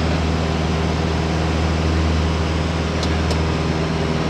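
Piper Tomahawk's four-cylinder Lycoming engine and propeller running steadily at constant power. Two faint short ticks come about three seconds in.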